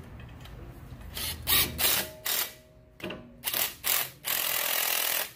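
A tool driving in the small screw that holds the brake rotor to the hub, in several short bursts and then a longer run of about a second near the end.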